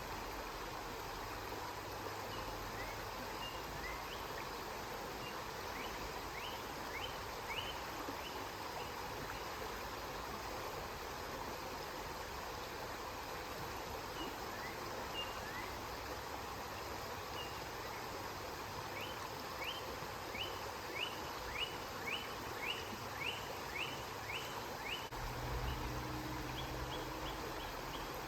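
River water flowing steadily, with a bird calling in quick series of short high notes. Near the end a low hum comes in underneath.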